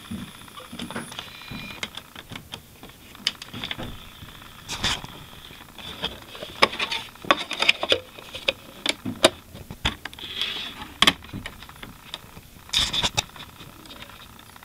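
Irregular plastic clicks, knocks and rattles from hands working an Emerson triple-play linear 3-CD changer: a disc is handled on its spindle and the changer's buttons are pressed.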